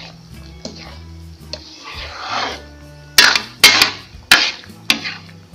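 A ladle stirring a thick, simmering mixture of guava and coconut milk, scraping around the pan, then about five sharp clanks against the pan past the middle. Steady background music plays underneath.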